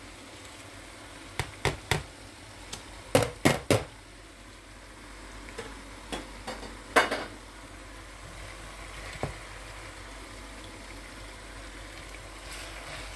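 Sliced onions and peppers sizzling in a frying pan, with a string of sharp knocks and scrapes as chopped peppers are tipped in from a chopping board and a wooden spatula strikes the pan: three quick knocks, then three louder ones a second or so later, and one more loud knock about seven seconds in.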